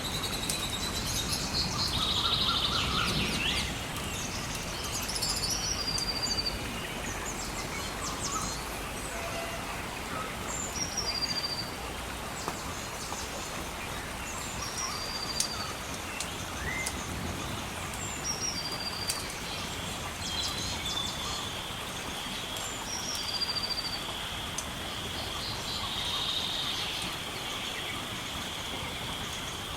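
Birds chirping, a short falling call repeated every few seconds, over a steady rush of river water or rain. A few sharp fire crackles, and a low rumble that fades in the first few seconds.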